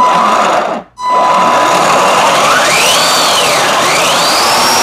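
Power Wheels Jeep drivetrain being test-run: four 887 brushed motors driving through 3D-printed dual-motor gearboxes, giving a loud motor and gear whine. It starts, cuts out briefly just before a second in, then starts again and speeds up and slows down twice, the whine rising and falling in pitch each time.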